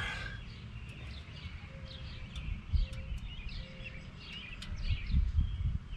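Songbirds chirping over a low rumble, with low thumps about three seconds in and again near the end.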